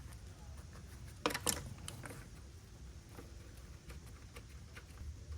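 Light metallic clicks of a socket wrench with an 8mm deep socket working on the fuel-rail fasteners: two sharp clicks about a second and a half in, then scattered faint ticks, over a low steady hum.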